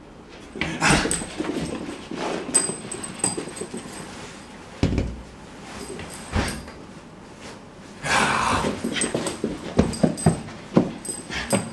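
Whippet puppy yapping in play, in irregular outbursts, with two dull thumps in the middle.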